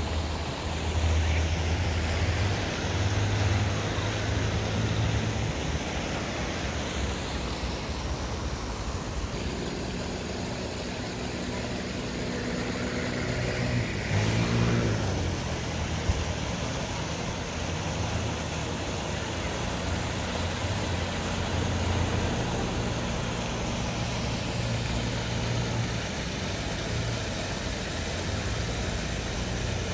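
Outdoor town ambience of road traffic with a low rumble underneath. About halfway through, a motor vehicle passes close by, its engine note falling in pitch as it goes past.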